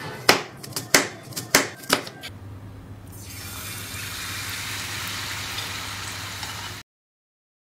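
A knife chopping through a red onion onto a wooden board, several sharp chops in the first two seconds. Then the steady sizzle of the cut onion deep-frying in hot oil, which cuts off suddenly near the end.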